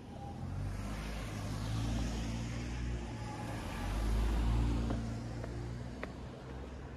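A car driving past on the street, its low engine hum and tyre noise swelling from about half a second in, loudest around four seconds in, then fading away.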